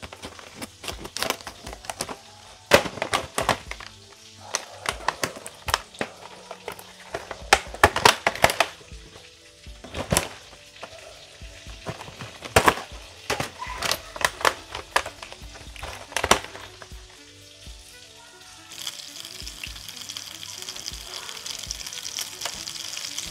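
Clear plastic pasta trays crackling and snapping as they are cut open with scissors and handled, in many sharp, irregular clicks. Near the end this gives way to the steady hiss of water at a rolling boil in a pot.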